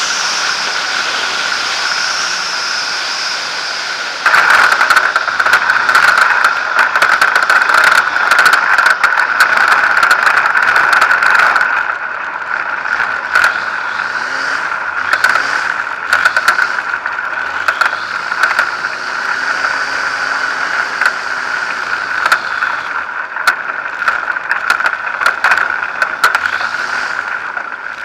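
Zenair 701 light aircraft landing on a rough dirt strip: the engine runs at low power with wind rushing past. About four seconds in the wheels touch down and the plane rattles and clatters over the rough ground as it rolls out. The clatter eases after about twelve seconds, with the engine still running.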